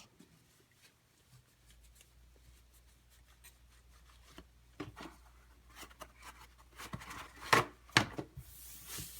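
Faint handling noises: scattered clicks and knocks, two sharper knocks near the end, then a brief hiss, over a low hum.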